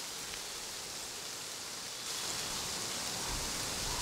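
Wind blowing through tree leaves as a steady rustling hiss, growing a little stronger about halfway through. Near the end it adds a low rumble of wind on the microphone.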